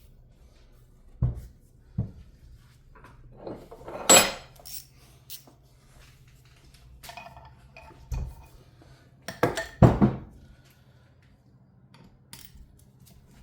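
Metal tools and turbo oil-feed fittings clinking and clanking as they are handled and worked on: scattered sharp knocks, the loudest about four seconds in and a quick cluster around ten seconds in. A faint steady low hum runs underneath.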